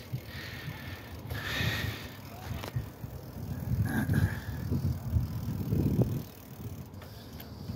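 Riding a bicycle on a paved path: low rumble of tyres and wind on the microphone, swelling and easing a few times.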